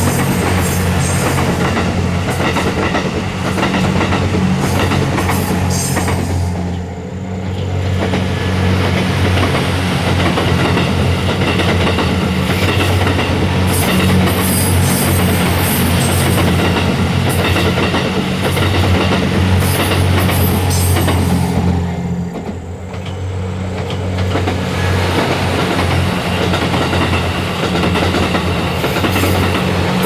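JR West Series 87 Twilight Express Mizukaze diesel-electric train running past at close range, a dense rolling rumble over a steady low hum. The sound dips briefly twice.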